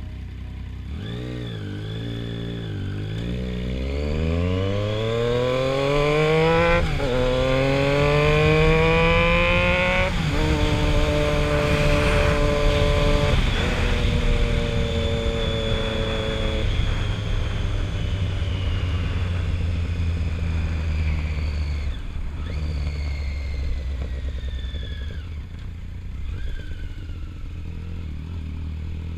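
Triumph Street Triple 675R's inline three-cylinder engine under way, revs climbing through several gears with quick shifts in the first half, then running steadier at lower revs.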